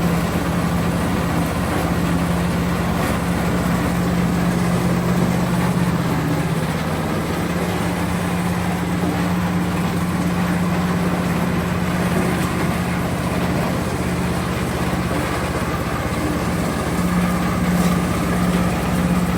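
Corn sheller machine driven by a 30 HP Jiang Fa diesel engine, running steadily with a constant drone and low hum.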